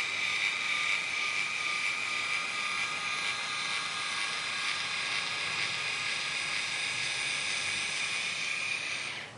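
Motor of an InStyler rotating hair iron whirring steadily, turning its heated barrel as it is drawn down a section of hair to straighten it. It is a high-pitched whine that cuts off suddenly just before the end.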